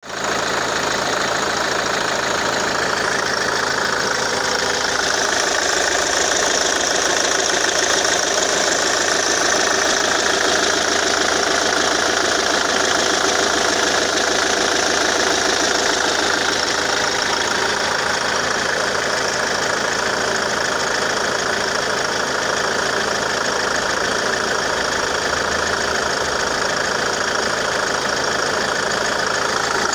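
Ford Mondeo Mk3 2.0 TDCi four-cylinder common-rail diesel idling steadily on freshly repaired Delphi injectors. It has an even, fast diesel ticking, and the engine speed does not change.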